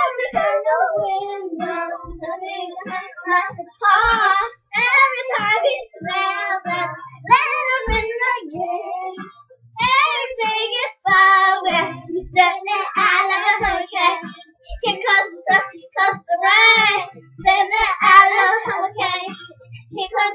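Young girls singing a pop song unaccompanied, in wavering phrases broken by short pauses, with a few low thumps.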